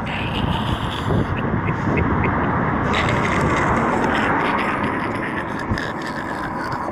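Steady rushing noise that swells about a second in and eases off toward the end.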